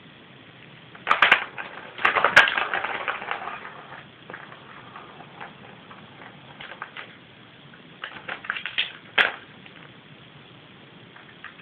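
A small plastic ball rattles and clicks around a plastic ball-track cat toy as the cat bats at it with its paws. There are bursts of clattering: one about a second in, a longer rattling run that fades out after a couple of seconds, and another cluster near the end that finishes with a sharp click.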